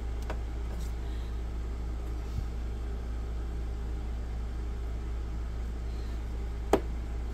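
Steady low background hum with handling noise as two plastic handheld radios are turned over in the hands; a single sharp click, most likely the radio bodies knocking together, sounds near the end.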